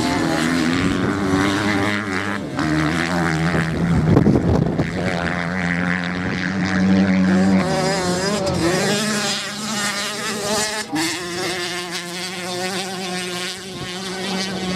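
Several motocross bikes' engines running and revving on a sand track, a high buzzing whine over a lower drone, the pitch climbing and dropping as the riders accelerate and shift. Loudest about four seconds in, as one passes close.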